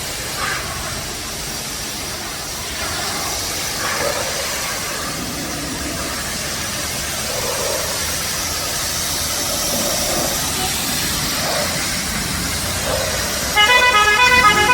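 Steady hiss of water spraying on the car. About a second before the end, a louder pitched sound of several tones, pulsing rapidly, cuts in.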